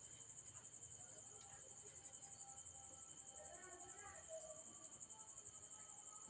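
Near silence, with a faint, steady, high-pitched pulsing trill of crickets throughout.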